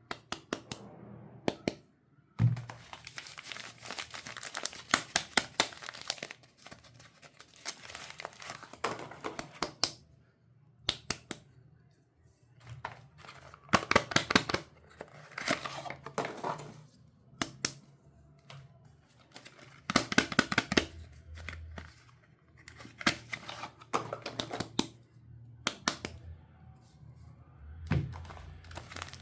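Soap wrappers crinkling and tearing as bars of soap are unwrapped by hand, in bursts of crackly rustling with short pauses between. There is a soft thump about two seconds in and another near the end.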